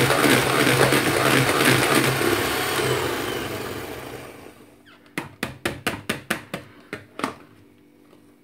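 Electric hand mixer running with its wire beaters whipping a thick cream-and-mascarpone mixture, then switched off and winding down about three to four seconds in. Then about ten quick, sharp taps in a row, the beaters being knocked against the plastic bowl.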